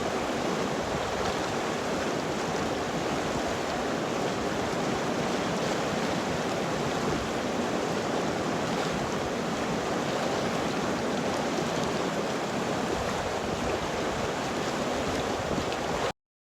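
River water flowing, a steady rushing that cuts off abruptly near the end.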